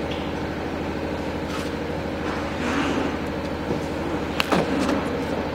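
Steady, low engine hum, with a couple of sharp clicks about four and a half seconds in.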